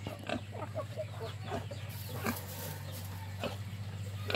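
Chickens clucking in a farmyard, many short scattered calls, over a steady low hum.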